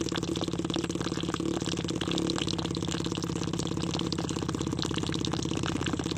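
Small electric water-pump motor running with a steady, fast-pulsing buzz, while a thin stream of water pours and splashes into a shallow trough.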